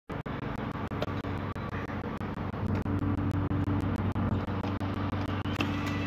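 Steady drone of road traffic, a low engine hum that holds throughout.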